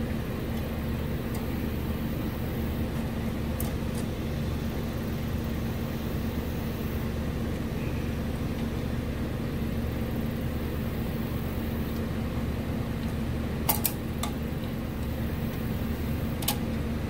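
Steady low machine hum, like a running fan, with a few light clicks and taps: about four seconds in, a small cluster near fourteen seconds and once near the end, as a brake line and its fitting are handled and threaded in by hand.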